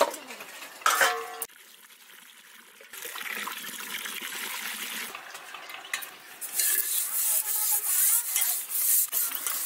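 Hands swishing and rinsing red amaranth leaves in a steel bowl of water, with clinks of steel utensils. In the last few seconds, louder rubbing and scraping strokes as a metal cooking pot is handled.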